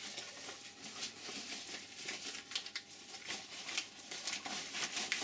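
A packet rustling and crinkling in the hands as gasket parts are slipped back into it, with small irregular clicks.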